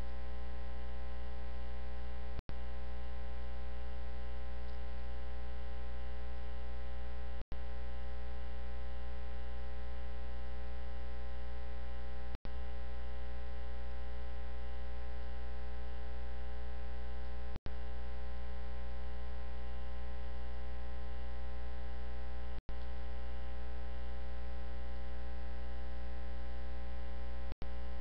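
Steady electrical mains hum with a ladder of overtones, carried in the audio feed, broken by brief total dropouts about every five seconds.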